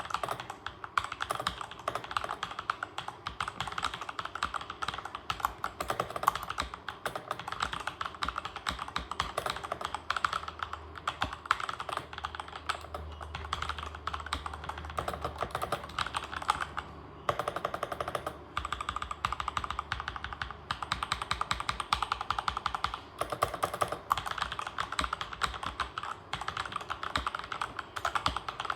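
Continuous typing on a Cosmic Byte CB-GK-16 mechanical keyboard fitted with pre-lubed Outemu Maple Leaf switches: a rapid, steady stream of keystroke clacks with a few brief pauses.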